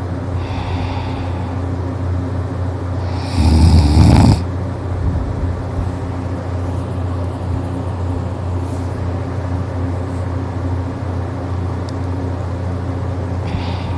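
A sleeping person snoring: one loud snore about three seconds in, with fainter ones near the start and near the end, over a steady low hum.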